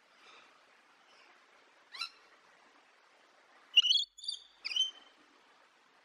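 Calls of a Moluccan cockatoo: a single sharp call about two seconds in, then a quick run of three louder, higher calls about four to five seconds in.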